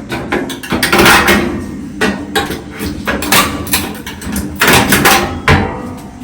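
Knocks and clatter of a part being worked loose and pulled out of a Whirlpool clothes dryer during disassembly: a string of sharp taps and bangs, loudest about a second in and again around five seconds in.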